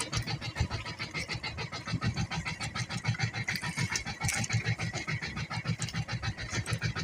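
Small outrigger boat's engine running steadily with a fast, even chugging.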